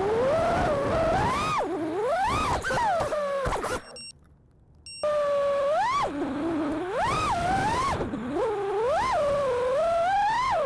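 Five-inch FPV freestyle quadcopter's brushless motors and propellers whining, the pitch swooping up and down over and over with the throttle. The sound drops away for about a second around four seconds in.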